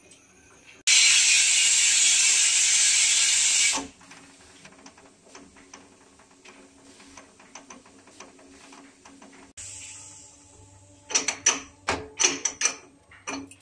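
Pressure cooker on a gas flame whistling: a loud steam hiss lasting about three seconds as the whistle weight lifts, followed by a faint rapid rattle. Near the end come several sharp metal clicks as the whistle weight and cooker are handled.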